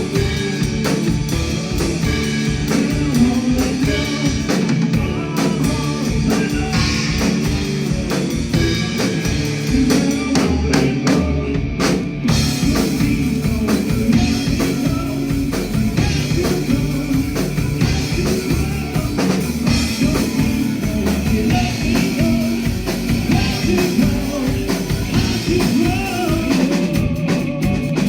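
Live rock band playing: drum kit, guitar and bass, with singing.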